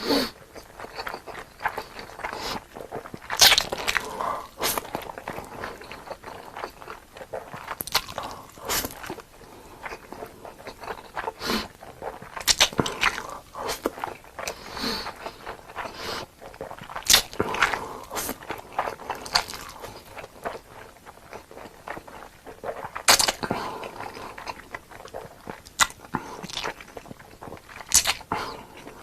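A person eating close to the microphone: biting, crunching and chewing, heard as irregular sharp clicks and smacks.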